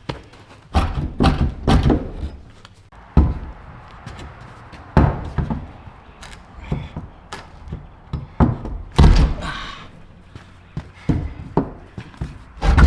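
Irregular heavy knocks and thuds on wood, some coming in quick pairs or threes, a second or more apart.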